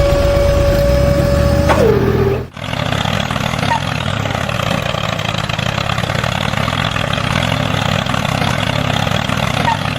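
Engine or motor sounds: a steady whine that drops in pitch just under two seconds in and cuts off. Then a steady engine running at idle with a low throb.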